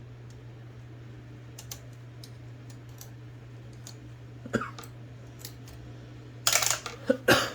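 Small metal parts of an IBM Selectric II typewriter's mechanism clicking and clattering as a part is worked out by hand. There are scattered light clicks, a short clatter about four and a half seconds in, and a louder burst of clatter near the end, over a steady low hum.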